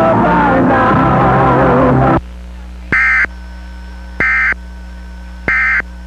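Background music cuts off abruptly about two seconds in, leaving a steady mains hum. Three short, identical bursts of Emergency Alert System digital data tones (SAME) follow, about a second and a bit apart. Bursts this short are typical of the end-of-message code that closes an EAS test.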